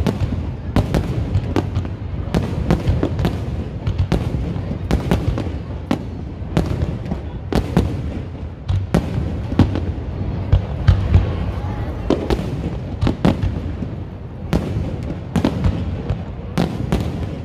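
Aerial fireworks shells bursting in an irregular rapid series of sharp bangs over a continuous low rumble.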